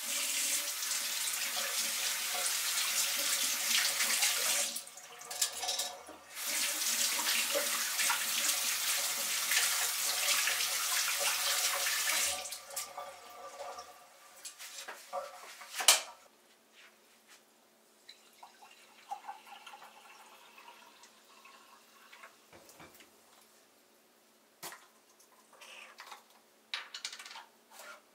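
Water running from a tap into a sink, stopping briefly about five seconds in and running again until about twelve seconds in. Quieter small clicks and clinks follow, with one sharp knock a few seconds later.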